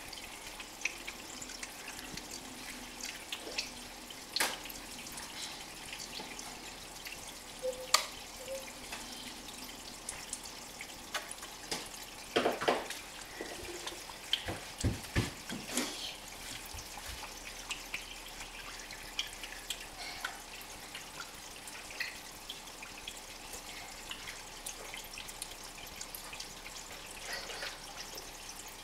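Aquarium water trickling and dripping, with irregular small splashes and pops that cluster and grow loudest about halfway through.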